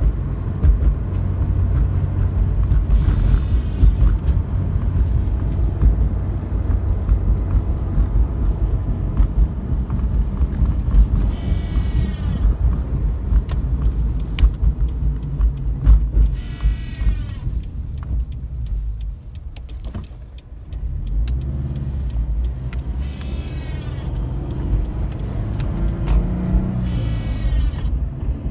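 A 2013 Scion FR-S running with a steady low rumble, while its HVAC system lets out a short, high, warbling squeak five times at uneven intervals, each about a second long. This is the odd noise the owner is tracing to the heating and air-conditioning.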